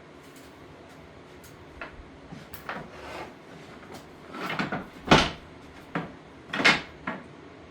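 Pieces of scrap wood knocking and clattering against each other as they are rummaged through and pulled out. There is a string of separate knocks and short scrapes, the loudest a sharp knock about five seconds in.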